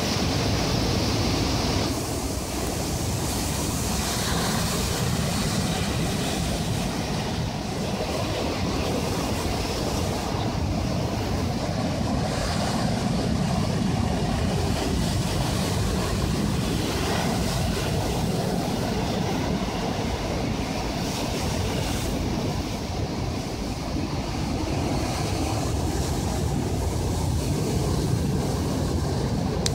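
Sea surf washing onto the shore, a steady rushing with gentle swells, mixed with wind buffeting the microphone as a low rumble.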